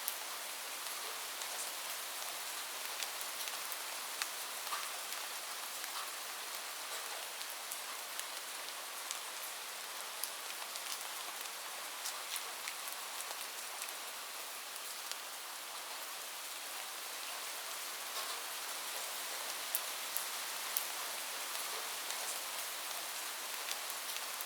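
Steady rain falling on a roof, a constant hiss with many separate drops ticking sharply through it.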